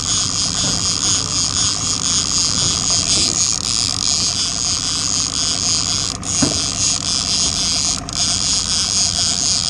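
Yamaha 60 outboard motor running steadily at low speed, with a constant high hiss above its drone.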